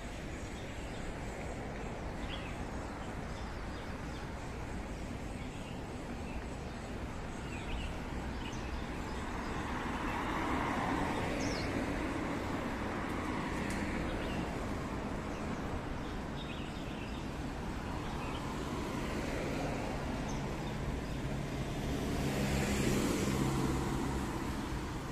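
Road traffic: a steady background of passing vehicles, swelling as a vehicle goes by around the middle and again, louder and with a low engine hum, near the end.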